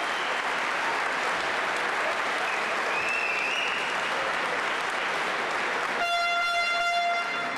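Crowd applauding, with a brief whistle about three seconds in and a horn sounding one steady note for about a second near the end.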